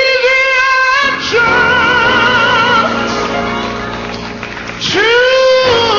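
Gospel song: a singer holds a long note at the start and another about five seconds in, with wavering sung lines in between, over instrumental backing.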